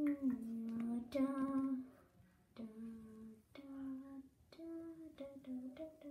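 A child's voice singing a wordless tune in short held notes, louder over the first two seconds and softer after.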